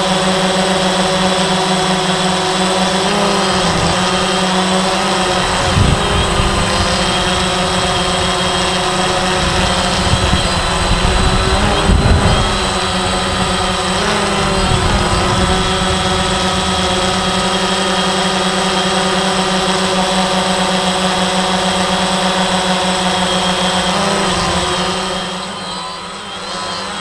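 DJI quadcopter's electric motors and propellers droning steadily, heard through the GoPro mounted on board, with wind gusts buffeting the microphone for stretches in the middle. Near the end the drone comes down low and the drone sound drops and thins.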